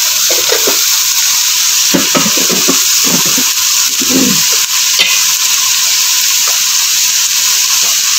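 Sliced onions sizzling steadily as they fry in oil in a pot. A slotted spatula stirs and scrapes through them in a run of strokes during the first half.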